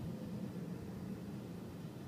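Low, steady rumble of a car driving slowly, heard from inside the cabin, easing off slightly.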